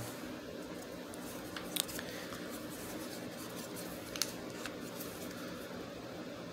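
A few small clicks and light taps as a hot glue gun and foam fin pieces are handled, over a faint steady room hum. The sharpest clicks come just under two seconds in and again about four seconds in.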